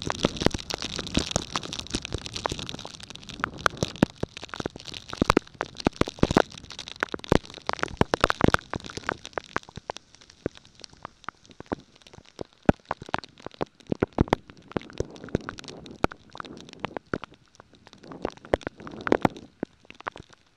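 Thunderstorm wind and rain, with a hiss of rain and many sharp, irregular cracks and pops of drops striking close to the microphone, and low rumbles of wind on it. The rain hiss thins out about halfway while the cracks go on.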